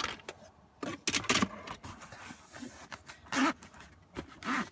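Handling noise as small items are packed back into a cardboard box: a quick run of clicks and rustles about a second in, then scattered soft scrapes and two short noisy bursts near the end.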